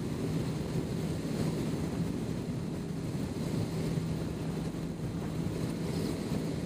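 Wind buffeting the microphone at highway speed over the steady drone of a Yamaha FZ8's inline-four engine cruising in top gear.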